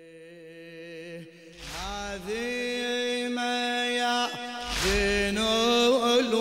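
Opening of a Shia latmiya: voices chant long held notes without words, building in loudness. A deep low thud falls about every three seconds.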